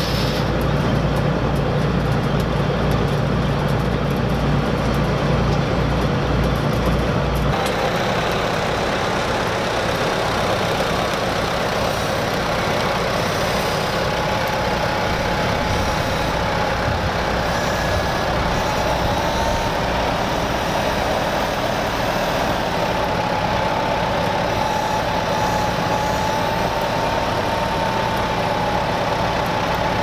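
1977 Gleaner M2 combine running steadily, then after a cut about seven seconds in, an Allis-Chalmers tractor's engine running, with a steady, slightly wavering whine above it.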